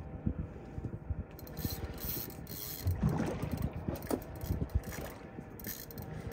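Large spinning reel cranked under heavy load, its gears grinding and ratcheting, with irregular knocks and rubbing as the rod is worked against a heavy fish.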